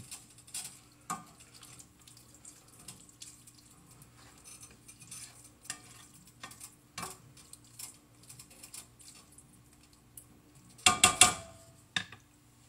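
Cookware and utensils clattering at a skillet of browned ground turkey and salsa: scattered light knocks and scrapes, then a loud clatter about eleven seconds in and a smaller knock a second later. A steady low hum runs underneath.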